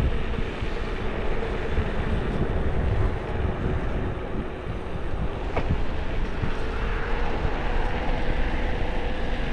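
Wind rushing over the microphone and road rumble from a moving e-bike, steady throughout, with a faint steady whine joining about six and a half seconds in.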